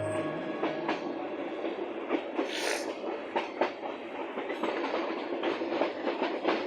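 Passenger train running along the track, a steady rumble with frequent clicks and knocks of the wheels over the rails. A brief hiss rises over it about two and a half seconds in.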